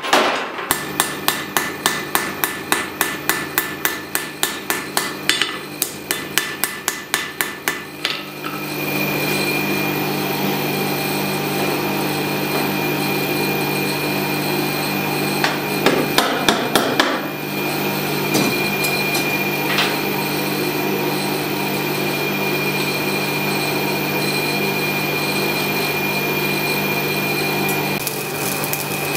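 Power hammer pounding a red-hot damascus billet, about three blows a second, which stops about eight seconds in. After it the forge runs with a steady noise and a constant hum, broken by a brief clatter of metal about halfway through.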